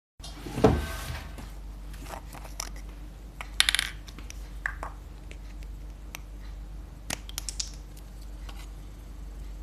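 A thump, then scattered clicks and clinks of small hard objects being handled and set down, with a cluster of quick clinks partway through, over a steady low hum.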